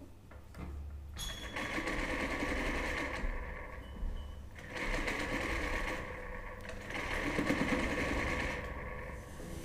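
Singer sewing machine stitching in three runs with short pauses, played as a live instrument.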